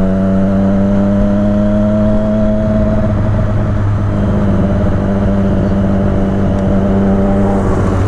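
Triumph superbike engine running at a steady cruise under way. Its note climbs slightly over the first two to three seconds, then holds even.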